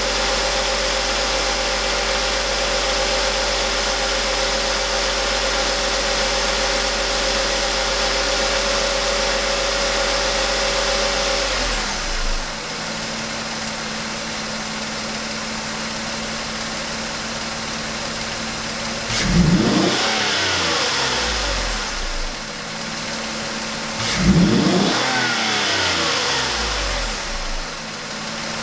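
Mazda6 car engine running steadily at a raised speed, dropping to a lower idle about twelve seconds in, then revved twice, each rev rising and falling back to idle. The owner suspects the engine of knocking and of making a hissing sound.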